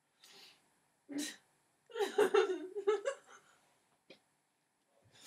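Laughter in a high voice: a soft breath, a short burst, then a run of giggles about two seconds in that lasts a little over a second.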